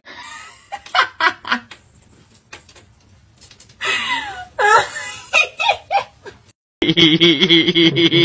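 A person giggling and laughing in short bursts, with quiet gaps between them. Near the end it cuts to a louder, steadier pitched sound.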